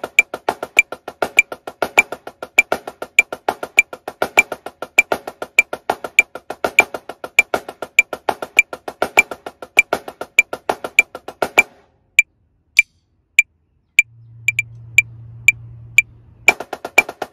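Marching snare drum playing a 16th-note grid exercise at 100 BPM: fast, even strokes with accents, over evenly spaced metronome clicks. About two-thirds of the way in the drumming stops and only the clicks remain, with a low steady hum for a couple of seconds. Near the end the drumming starts again at 120 BPM.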